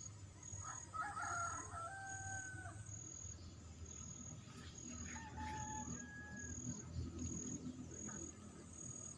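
A rooster crowing twice, two drawn-out pitched calls a few seconds apart. Insects chirp in a steady pulsing rhythm underneath.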